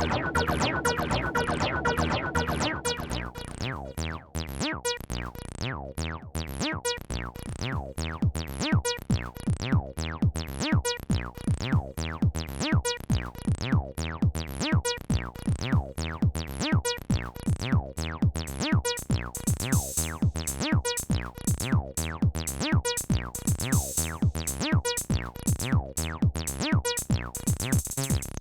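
Roland T-8 rhythm machine playing a sequenced electronic beat: drum-machine hits in a steady fast rhythm over a synth bass line. The pattern changes about three seconds in.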